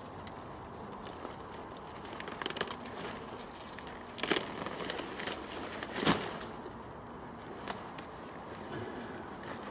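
Brassica plant being wrenched from the ground: leaves rustling and stalks and roots cracking and tearing, with a few sharp snaps, the loudest a little past the middle.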